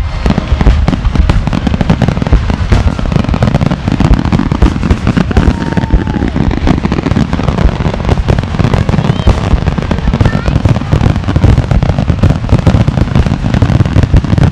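Fireworks finale: a continuous barrage of overlapping bangs and crackles, many a second, with no pause between them.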